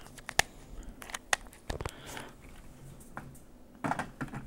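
Small plastic dropper bottles being capped and handled: a string of sharp clicks and taps as a cap is twisted shut and bottles are picked up and set down.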